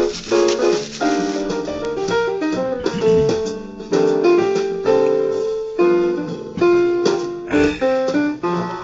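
Background music: a jazz piano tune playing many quick notes and chords.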